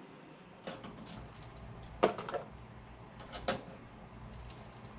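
A few short sharp metallic clicks, the loudest about two seconds in: clecos being pulled out of the aluminium rudder skin.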